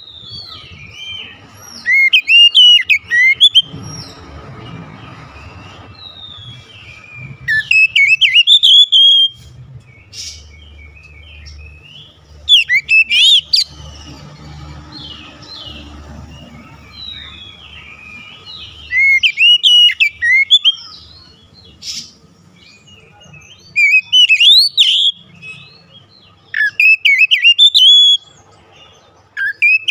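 Oriental magpie-robin singing: about six loud bursts of rapid, varied whistled phrases, each lasting a second or two, with softer chirps between them. The song is the full repertoire of learned phrases that keepers prize in a kacer in good song.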